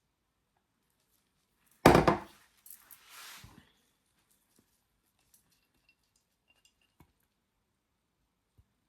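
A single loud clatter of soap-making equipment set down or knocked on a hard work surface about two seconds in. It is followed by a brief scrape and then a few faint clicks of handling.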